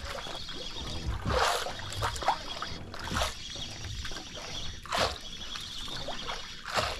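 Water lapping and slapping against the hull of a small outrigger fishing boat, in swells about every two seconds over a steady hiss of moving water.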